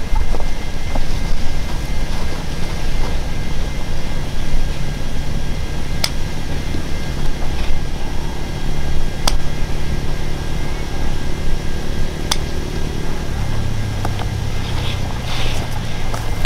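An engine running steadily, its pitch stepping down about thirteen seconds in, with three sharp clicks along the way.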